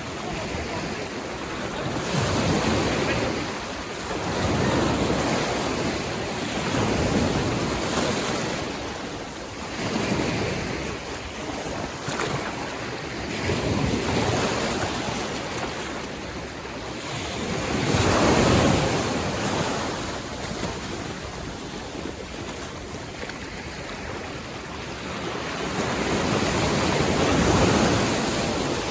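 Ocean surf breaking on a sandy beach, waves washing in one after another, each swelling and fading over a few seconds, the loudest about two-thirds of the way through.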